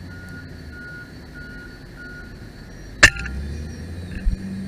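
A farm vehicle's reversing alarm beeps steadily, about three beeps every two seconds, then stops. About three seconds in comes a single sharp crack from an FX Maverick Compact .22 PCP air rifle firing, followed by a low, steady engine hum.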